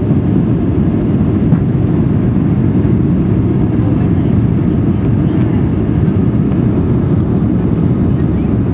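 Jet airliner cabin noise at takeoff power through liftoff and the start of the climb: a loud, steady low rumble of the engines and airflow heard inside the cabin, with one brief knock about a second and a half in.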